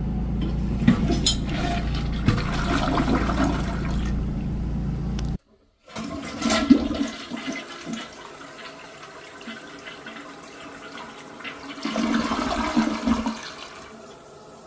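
Toilets flushing in back-to-back clips: a loud rush of flushing water over a steady low hum that cuts off suddenly about five seconds in, then after a moment of silence another flush surges and fades, with a second surge of flushing water near the end.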